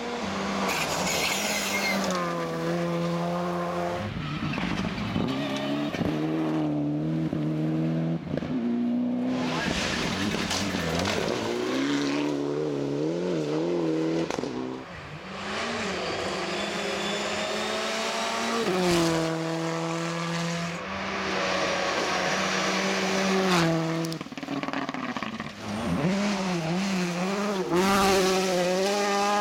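Rally cars, including a Mitsubishi Lancer Evolution and a Ford Fiesta WRC, driven flat out past the camera one after another on a gravel stage. Their engines rev hard, with the pitch climbing and dropping again and again through gear changes and lifts, over the hiss of tyres on gravel.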